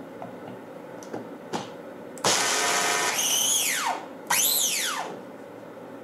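Electric mini chopper grinding roasted hazelnuts in two short pulses, the first about two seconds in and the second just after four seconds. Each pulse starts suddenly and its whine drops in pitch as the motor winds down. A couple of light clicks come before the first pulse.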